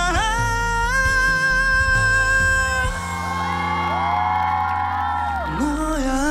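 Male vocalist singing a ballad live with musical backing, holding one long high note. About three seconds in the note ends and the audience cheers and whoops. Near the end the singing resumes on a lower note.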